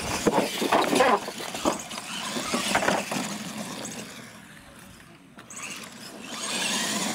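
Radio-controlled monster trucks racing over wooden jump ramps, with a run of sharp knocks and clatter from the trucks hitting and landing off the ramps in the first few seconds, quieter in the middle and then a steadier running noise near the end.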